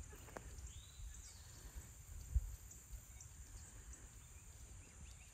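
Faint open-field ambience: a steady high-pitched insect drone with a few short bird chirps and one whistled call, over low wind rumble on the microphone, with a dull thump about two and a half seconds in.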